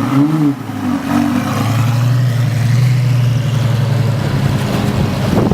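Ferrari engine running, with a short rise and fall in revs about the first second, then holding a steady low note for a couple of seconds.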